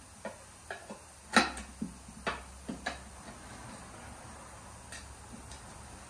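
Metal hand tools knocking and clinking against a small lawn mower wheel rim while a new tire is worked onto it. A quick run of sharp knocks comes in the first three seconds, the loudest about a second and a half in, followed by a couple of lighter taps.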